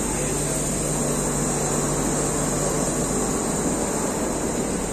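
Steady, loud mechanical drone with a low hum from a passenger train standing at a station platform, machinery running continuously with no change in pitch.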